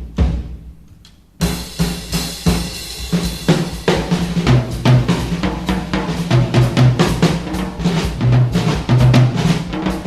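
Background music driven by a drum kit. After a brief fade near the start, a cymbal-like crash about a second and a half in brings the beat back.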